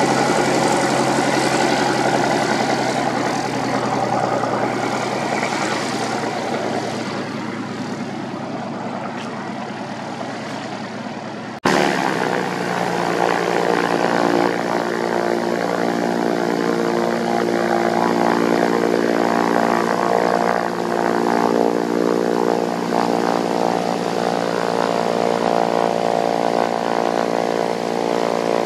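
Propeller aircraft engine running. About twelve seconds in the sound changes abruptly to a steadier engine note with a clear, even pitch.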